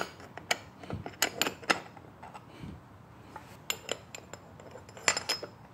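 Irregular metallic clicks and clinks of a steel kickstart gear removal tool being handled and fitted over the kickstarter gear on a GY6 engine's crank.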